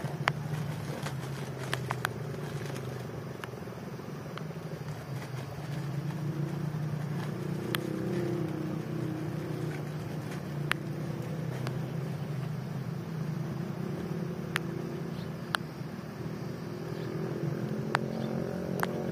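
A low, steady engine-like drone that swells a little near the end, with scattered sharp clicks and taps over it.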